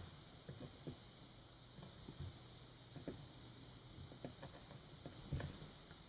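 Faint, irregular clicks and scratches of a short hook pick working inside a Yale padlock's keyway under tension, the pick scraping the sides of the lock as it probes the pins; one slightly louder click near the end.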